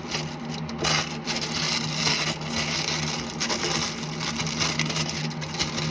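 Plastic packaging rustling and crinkling with lots of small crackles as action-figure accessories are unwrapped and handled.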